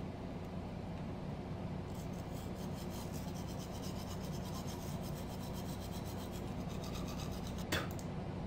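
Manual toothbrush scrubbing teeth: rapid back-and-forth bristle strokes, several a second, over a steady low hum. A single short sharp sound comes near the end.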